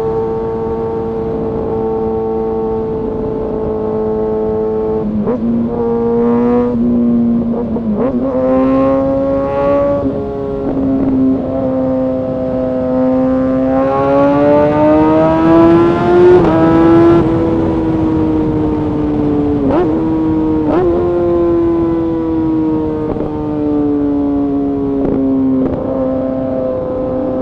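Kawasaki ZX-6R inline-four sport-bike engine and exhaust under way. It holds steady revs, then has several quick breaks and steps in pitch a few seconds in, as gears are shifted. Revs climb steadily past the middle, then drop back with a couple of sharp cracks.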